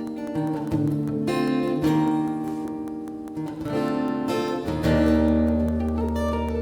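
Acoustic guitar playing the song's intro, with strummed chords changing every second or so. A deep low note rings under the chords from about five seconds in.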